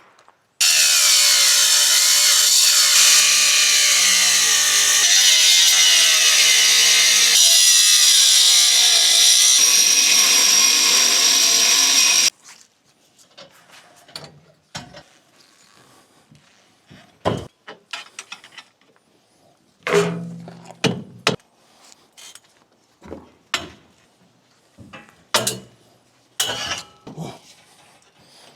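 A power tool running loud and continuously for about eleven seconds with its pitch wavering under load, starting and stopping abruptly, then a series of scattered knocks and clanks.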